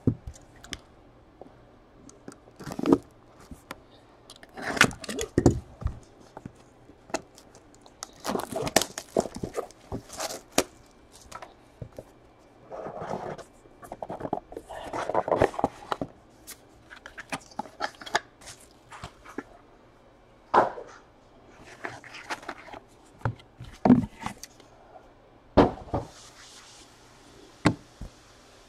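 Trading cards and their packaging being handled on a table: scattered scrapes, taps and rustles at irregular intervals.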